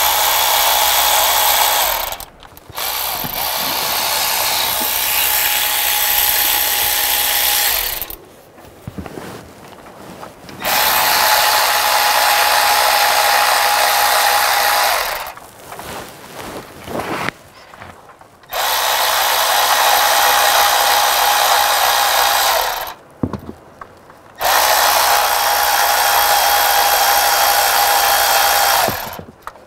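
Milwaukee cordless electric ratchet with an 8 mm socket backing out the water pump bolts: five runs of steady motor whine a few seconds each, with short quieter pauses between them as it moves from bolt to bolt.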